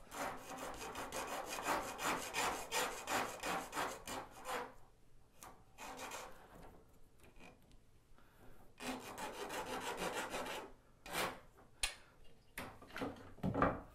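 Small file scraping the cut end of a nickel-silver model railroad rail, deburring Micro Engineering flex track freshly snipped with rail nippers. Quick back-and-forth file strokes for about five seconds, a pause, another couple of seconds of strokes, then a few single strokes near the end.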